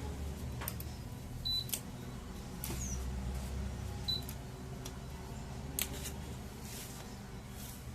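Washing machine running with a steady low hum, with two short high beeps and several sharp clicks.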